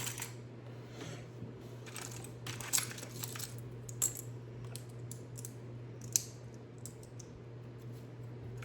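Small plastic Lego pieces clicking and rattling as they are handled and snapped together, in scattered light clicks with a few sharper ones.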